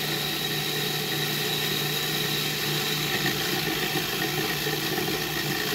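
Food processor motor running steadily, its blade spinning through basil pesto while olive oil streams in through the feed tube.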